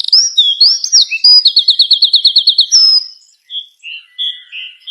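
A songbird singing a loud, varied song of whistled sliding notes and a rapid trill of about ten notes a second. The song breaks off about three seconds in, and a few softer, separate chirps follow.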